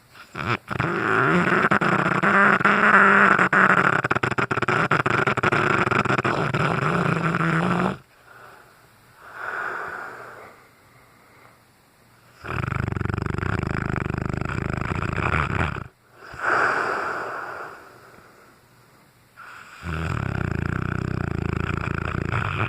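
A sleeping cane corso snoring loudly. There are three long snores, the first and loudest lasting about seven seconds, and each is followed by a shorter, softer breath.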